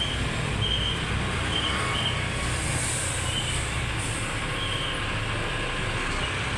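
Bus diesel engine running with a steady low rumble, with a few short, faint high chirps at intervals over it.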